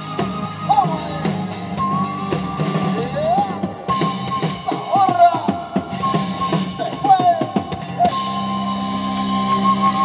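Live Latin band playing an instrumental passage: drum kit and congas keep a steady dance beat under guitar and bass, with a lead melody of sliding, bending notes.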